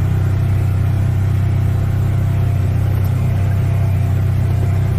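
Side-by-side UTV engine running steadily under way on a dirt trail, a constant low drone heard from inside the cab.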